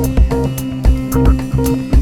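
Background music with a steady beat: plucked guitar-like notes over kick drum and hi-hat.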